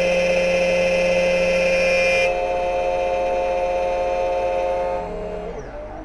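XTOOL automatic key cutting machine running its cutter through a key blade with a steady whine. About two seconds in, the higher, harsher part of the sound cuts off sharply. Near the end the motor winds down, falling in pitch.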